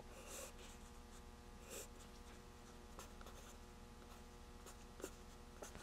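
Faint pencil scratching on paper as figures are written onto a sketch, with a few soft ticks, over a low steady hum.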